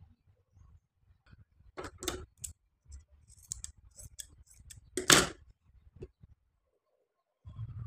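Large fabric scissors snipping through cloth: a run of short, sharp cuts, the loudest about five seconds in, then a dull low bump near the end.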